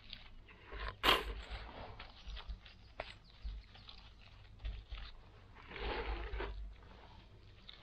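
Irregular scraping and rustling of earth being worked, with a sharp scrape about a second in and a longer rustle around six seconds.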